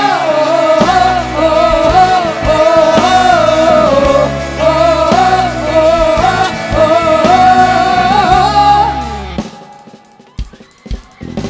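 Live pop-rock band music: a bending, wavering lead melody over drums and bass, stopping about nine seconds in, followed by a few scattered drum hits.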